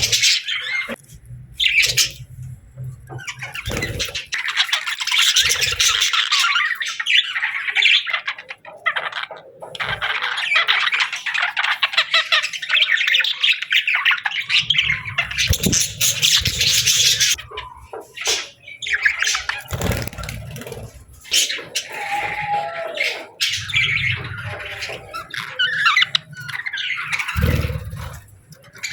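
Budgerigars chirping and chattering in rapid, dense runs with squawks mixed in, broken by short pauses. Low thumps sound underneath at times.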